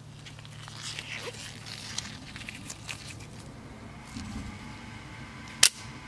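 Light rustling and small clicks as a gloved hand picks up a Burn Knives K-Razor solid-brass OTF automatic knife, then one sharp snap near the end as the double-edge dagger blade fires out of the handle.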